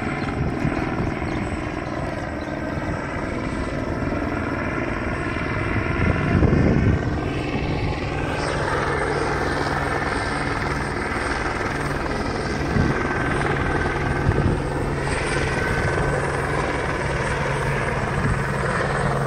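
Helicopter flying overhead as it comes in to land, its rotor and engine running steadily, with the steady hum growing clearer about eight seconds in. A brief low rumble about six seconds in.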